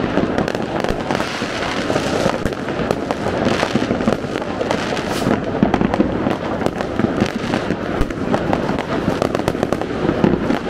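Dense, unbroken barrage of fireworks and firecrackers: many overlapping bangs and crackles coming from all around, loud throughout with no let-up.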